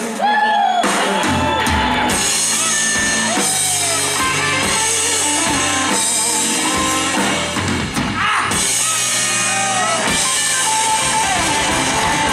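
Live blues-rock band played loud through a PA: an electric guitar lead with notes bending up and down over bass guitar and a drum kit.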